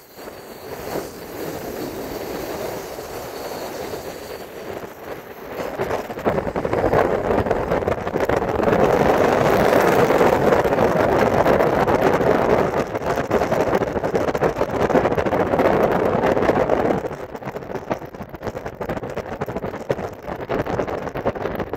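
Wind rushing past a phone held out of a moving car's open window, with tyre and road noise. It grows louder from about six seconds in and eases off again near seventeen seconds.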